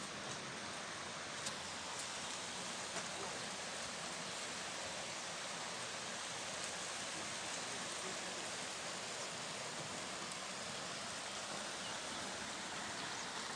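Shallow stream running over stones: a steady rushing hiss.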